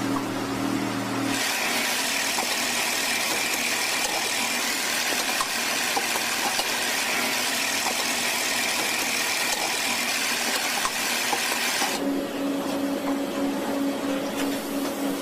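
Banknote processing machinery running steadily: a low hum that changes about a second in to a louder, even hiss with a steady high whine, then changes back to a low hum with a steady tone a few seconds before the end.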